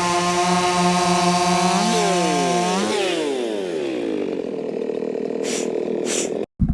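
Ported, muffler-modded Echo 4910 two-stroke chainsaw running at high revs. The revs climb briefly just before three seconds in, then fall away to a lower, steady running speed. The sound cuts off abruptly near the end.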